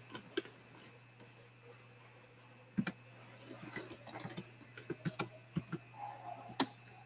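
Computer keyboard keystrokes and mouse clicks: a few single clicks, then a quick run of typing about four to five seconds in, and more scattered clicks near the end, over a faint steady low hum.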